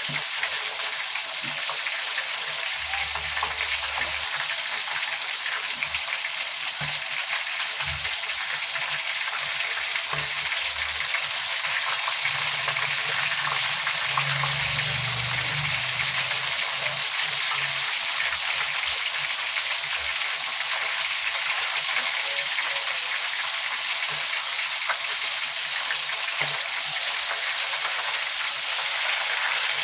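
Chicken pieces frying in hot oil, a steady, even sizzle.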